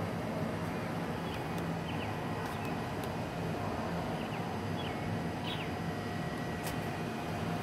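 Steady low mechanical hum with several short bird chirps over it.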